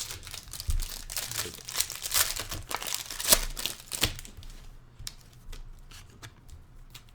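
Foil trading-card pack wrapper crinkling and tearing as it is handled, a dense crackle with many small clicks. After about four and a half seconds it thins out to scattered light clicks and rustles.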